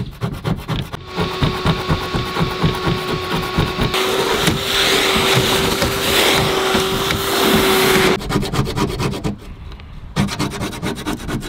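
Hand scraper scraping the bare boat deck in quick, rasping strokes. About a second in, a shop vacuum starts: a steady whine and hiss that grows louder about four seconds in as its crevice nozzle sucks up the loosened debris, then cuts off about eight seconds in. The scraping strokes then resume.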